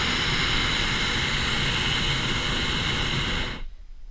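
Hot air balloon's propane burner firing in a loud, steady blast that cuts off abruptly about three and a half seconds in.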